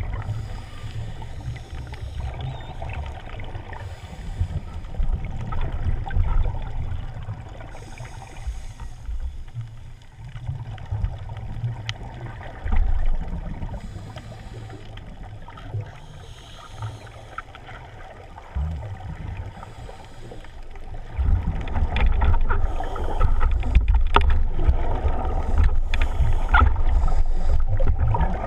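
Muffled underwater rumble of water moving over a waterproof camera housing, swelling every few seconds, with crackling scuba exhaust bubbles. It grows louder and busier for the last several seconds.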